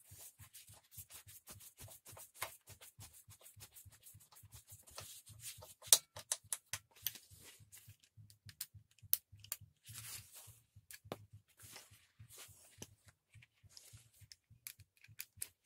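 Hand screwdriver driving self-tapping screws into the plastic housing of a petrol grass trimmer: irregular small clicks and short scraping sounds, with one sharper click about six seconds in.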